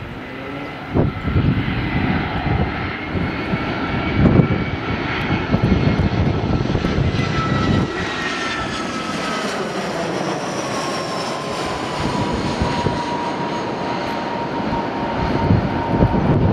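Airbus A320's two CFM56-5 turbofan engines passing low overhead on final approach, gear down: a steady jet rush with whining fan tones that drop in pitch as it passes and moves away.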